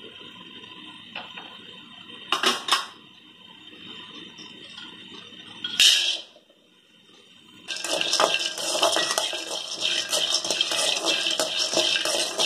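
Metal knocks from a dry aluminium kadai on the stove, then raw groundnuts poured into it in one short loud clatter just before six seconds. From about eight seconds the nuts are stirred with a metal spatula, rattling and scraping continuously against the dry pan as they start to toast.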